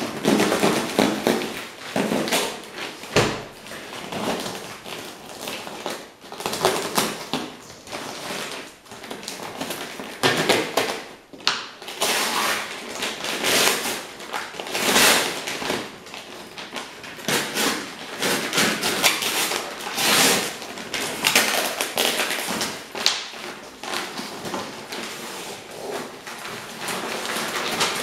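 Brown paper and plastic wrapping on a parcel being slit with a knife and torn off by hand: irregular rustling, crinkling and ripping, with a thump about three seconds in.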